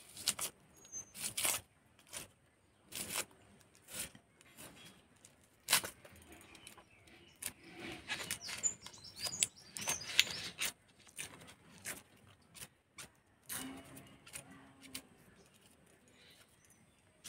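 A red onion being peeled by hand against a boti blade: the dry, papery skin crackles and tears in scattered short clicks and rustles.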